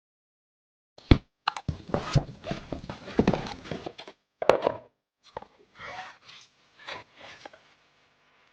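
Hands unboxing computer hardware: irregular taps, knocks and rustling of the packaging, starting about a second in and dying away near the end.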